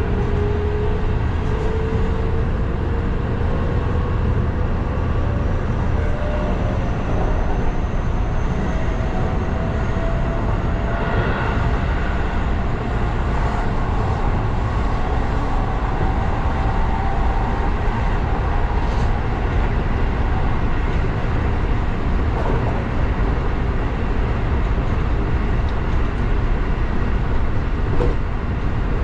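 Keihan electric train heard from the driver's cab, running along the track with a steady low rumble. Through the first half a whine slowly rises in pitch as the train picks up speed. A few short clicks come through.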